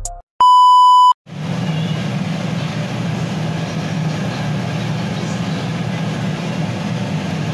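A single loud electronic beep, a little under a second long. Then a steady low hum with a faint hiss over it.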